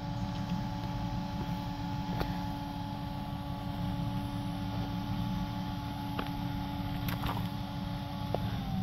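Off-road 4x4's engine running steadily, a low rumble with a steady hum over it that drops in pitch near the end. A few light clicks sound over it.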